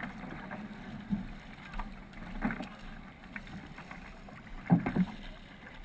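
Paddle strokes of a K1 sprint kayak, the blades dipping and splashing in the water close to the bow, with two louder strokes in quick succession near the end.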